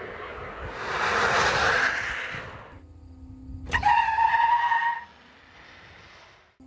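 GMC Hummer EV pickup driving past at speed: a rush of tyre and wind noise, then, after an abrupt start near the middle, a steady high-pitched whine from its electric drivetrain that is the loudest part and lasts about a second.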